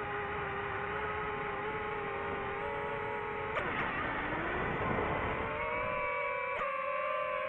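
DJI FPV drone's motors and propellers whining with several steady tones. About halfway through there is a rushing sweep, and then the whine steps up in pitch.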